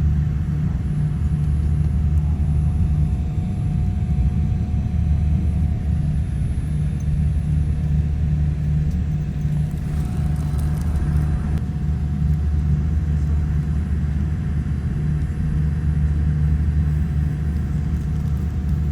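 Steady low rumble inside a Boeing 787-10's cabin as the airliner taxis, the engines at low thrust, with a faint steady hum above it.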